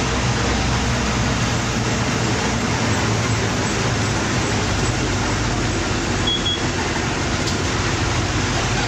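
Bus engine running steadily with tyre and road noise, heard from inside the bus while it drives.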